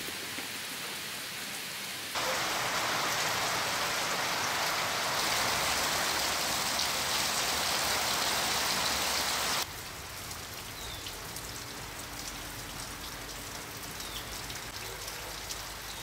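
Rain falling in a steady hiss: lighter at first, a torrential downpour on trees and foliage from about two seconds in, easing back to lighter rain about ten seconds in.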